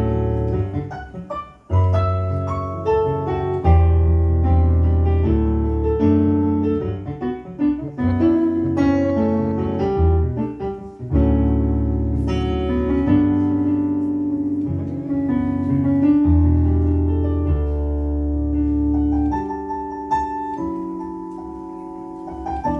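Solo stage keyboard played with a piano sound: jazz chords over deep bass notes, changing every second or so. Near the end it thins to quieter, higher notes.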